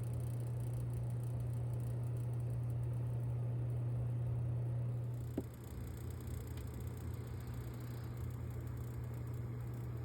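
Corsair RM1000e computer power supply making a steady low buzz, the abnormal noise the unit is shown for. About five seconds in there is a single click, and the buzz carries on a little quieter and less even.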